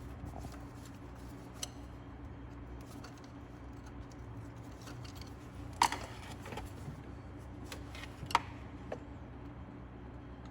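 Metal clinks and knocks of hand tools and small parts being handled during engine disassembly: a few separate sharp clicks, the loudest about six seconds in, over a steady low hum.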